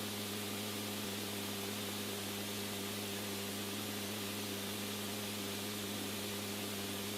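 Steady hiss of radio static with a low electrical hum, an open communications channel between transmissions.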